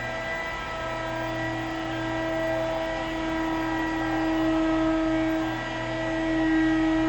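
Electric polisher running steadily while buffing a scratch out of glass, its motor holding a constant pitch as its loudness rises and eases slightly with the pressure on the pad.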